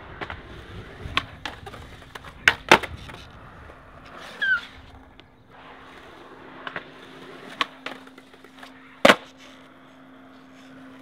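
Skateboard wheels rolling on concrete, broken by sharp wooden clacks of the board being popped and landed: two close together between two and three seconds in, and the loudest about nine seconds in.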